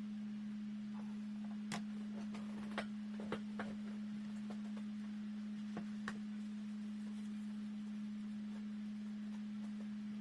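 A steady low hum at one pitch throughout, with a handful of small clicks and taps: several between about two and four seconds in, and two more around six seconds.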